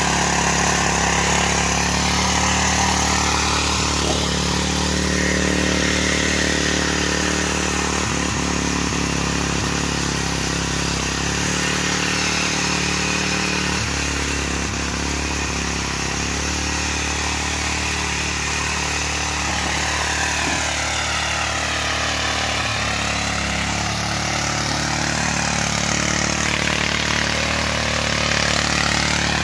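Mitsubishi petrol rotary tiller (walk-behind cultivator) engine running steadily as it tills garden soil.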